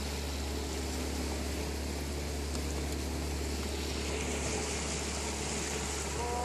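Motorboat engine running at a steady drone as the boat cruises, with an even hiss of moving water.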